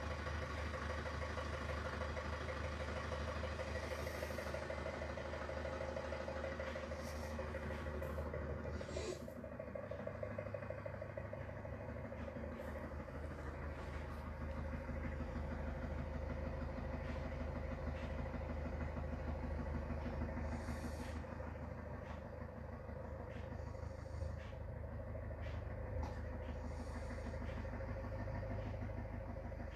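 Ford Transit's diesel engine idling steadily shortly after a cold start, with a few brief hisses. It is heard played back through a TV's speakers.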